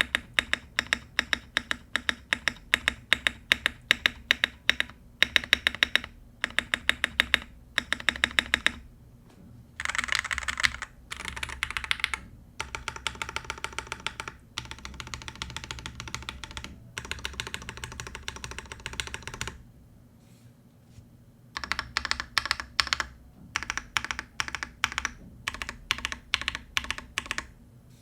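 Typing on a Monsgeek M5 gasket-mount mechanical keyboard with lubed Jelly Strawberry V3 switches on a polycarbonate plate: runs of rapid keystrokes with short pauses. The typing stops for about two seconds roughly two-thirds of the way through, then resumes and stops near the end.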